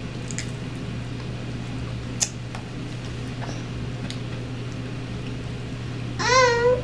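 Faint eating sounds of children chewing fried chicken wings held in their hands: a few light clicks and smacks, the sharpest about two seconds in, over a steady low hum. Near the end a child's high voice rises and falls briefly.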